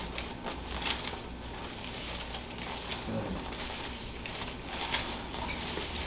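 Quiet room tone: a low steady hum with a few faint rustles and soft knocks.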